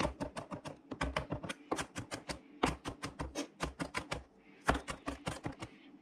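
Knife rapidly chopping garlic on a plastic cutting board: quick knocks of the blade on the board, about six or seven a second, in runs broken by short pauses.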